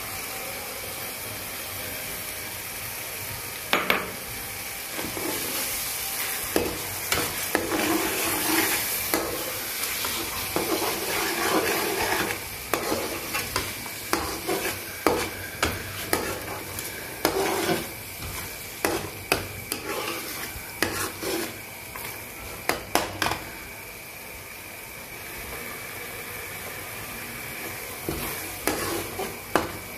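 Spice masala sizzling in oil in a nonstick frying pan as tomato paste is stirred in. A steel spoon scrapes and taps against the pan over and over, busiest from a few seconds in to about three-quarters of the way through, and again near the end.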